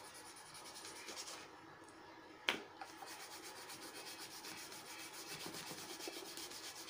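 Blue colour being shaded quickly back and forth across a sheet of drawing paper, a steady rubbing, with one sharp tap about two and a half seconds in.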